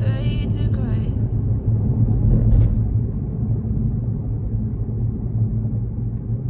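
Steady low road and tyre rumble inside a Tesla electric car's cabin at expressway speed, with no engine sound. The tail of background music stops about a second in.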